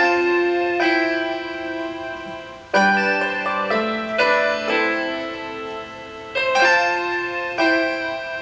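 Instrumental piano-style keyboard music: slow chords, each struck and left to fade, with a new chord every second or two.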